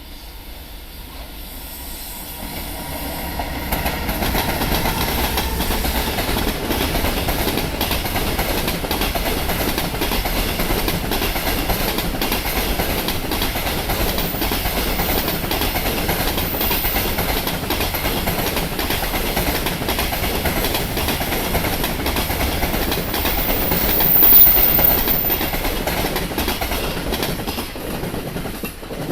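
Container freight train wagons rolling past, their wheels clattering over the rail joints in a steady clickety-clack. The sound builds over the first few seconds, then holds, with a brief high-pitched wheel squeal about three-quarters of the way through. It falls away sharply at the end.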